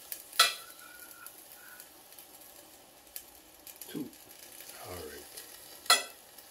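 Fish being laid into an air-fryer basket by hand: two sharp clacks about five and a half seconds apart, with quiet handling noise between them.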